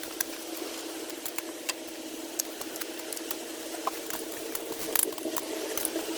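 A small motor hums steadily, with scattered sharp clicks and light rattles over it.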